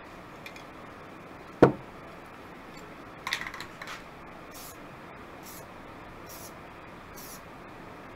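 Aerosol spray-paint can sprayed in short hissing bursts, about one a second, in the second half. Before that, a single sharp knock about a second and a half in and a brief clattering rattle a couple of seconds later.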